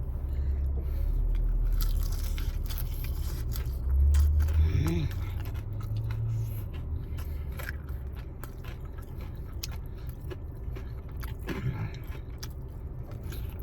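A person biting and chewing fried chicken wings close to the microphone: many small wet clicks and smacks, with a low rumble that swells about four seconds in.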